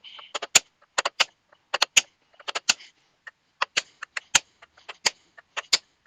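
Hammer blows driving a wedge down into the top of a hammer handle to lock the head on: a steady run of sharp knocks, about three a second, many in quick pairs.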